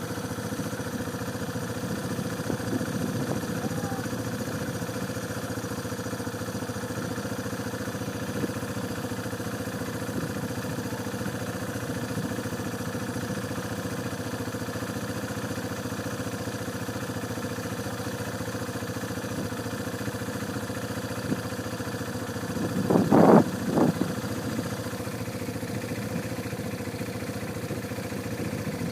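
A vehicle engine running steadily with a constant hum. About two-thirds of the way through, a short, louder pitched sound rises over it twice in quick succession.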